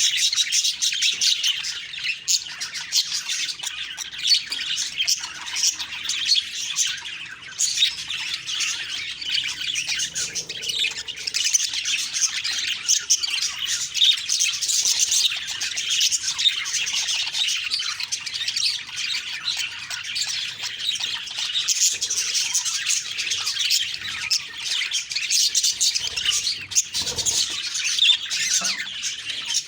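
Budgies chattering, chirping and squawking without pause, several calls overlapping in a busy high-pitched warble.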